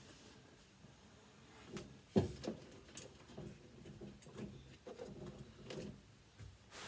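Handling knocks as a washing machine motor is fitted back onto its mounting brackets: one sharp knock about two seconds in, then scattered lighter clicks and taps.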